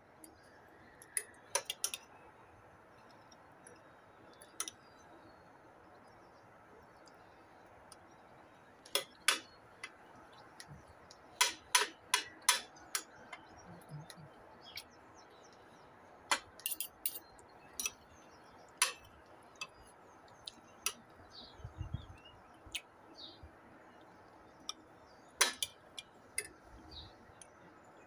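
Metal spoon and fork clinking and tapping against ceramic plates in scattered sharp clicks, sometimes several in quick succession.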